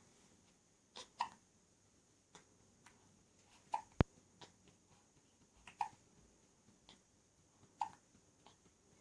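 Repeated hiccups, short and sharp, about one every two seconds. There is a brief sharp click about four seconds in.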